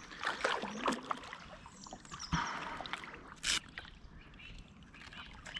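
Water splashing and swirling beside a kayak as a hooked wels catfish thrashes at the surface, with a few short sharp splashes or knocks, the brightest about three and a half seconds in.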